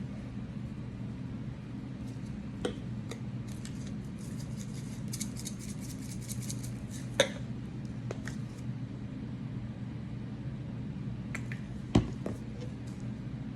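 Kitchen handling sounds while seasoning chicken: scattered light clicks and rattles, and two sharp knocks about seven and twelve seconds in, over a steady low hum.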